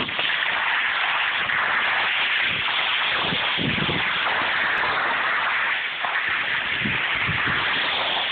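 Steady scraping hiss of edges sliding over packed snow while riding down a ski slope, with short low buffets of wind on the phone's microphone a few times.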